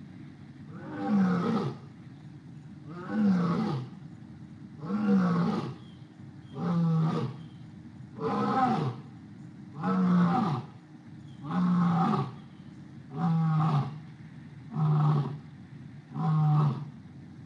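Lion roaring: a series of deep calls, one about every two seconds. The first calls are about a second long and fall in pitch; later ones become shorter and steadier.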